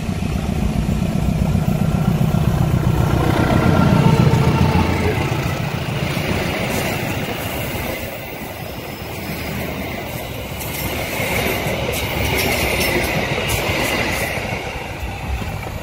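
CC201 diesel-electric locomotive hauling a passenger train past at close range: its engine rumble builds to a peak about four seconds in as it goes by. The coaches then roll past with wheel clatter and a high squeal from the wheels on the curve.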